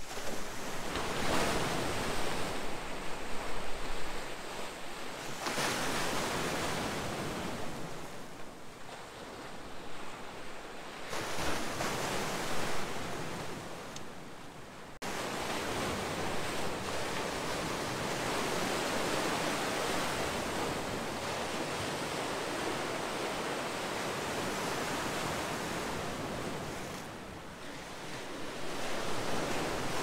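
Sea waves breaking and washing against a rocky shore, the surf swelling and fading every few seconds. About halfway through the sound changes abruptly to a steadier, continuous wash, with another swell near the end.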